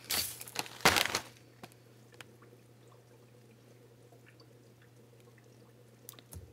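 Clear plastic zip bag of dried alder cones being handled, the cones shifting and crackling inside in two short bursts, the second, about a second in, the loudest. After that only faint scattered clicks of small handling over a steady low hum.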